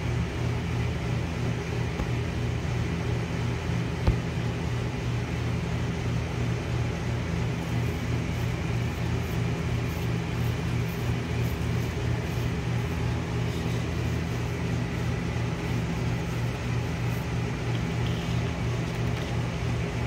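Steady low mechanical hum, like a fan or air-conditioning unit running, with one light tap about four seconds in.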